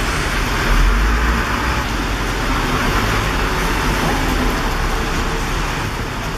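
Heavy rain falling on a city street, a dense steady hiss, with road traffic rumbling low underneath that swells briefly about a second in.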